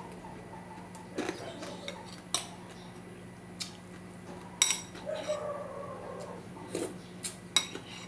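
Utensils clinking against a plate and bowl while eating: about seven sharp, separate clinks, with a steady low hum underneath.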